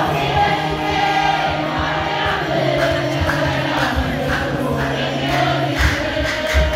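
A congregation singing a hymn together in unison, with hand-clapping and low thumps in the background.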